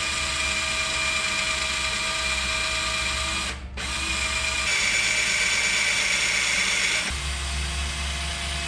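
Handheld power drill boring holes through a motor-mount riser plate. A steady motor whine that cuts out briefly about three and a half seconds in, then runs again, louder for a couple of seconds before easing.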